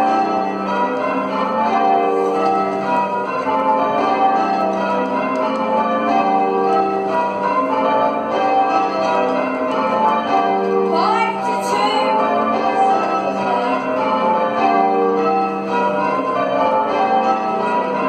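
Church tower bells change ringing: a ring of bells, each swung by a bell rope, struck one after another in a steady, even rhythm, their tones overlapping.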